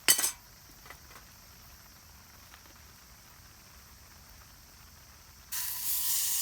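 A short sharp clatter at the start. Then, about five and a half seconds in, a loud steady sizzle starts suddenly, as raw Angus beef steak goes into a hot pan and begins to fry.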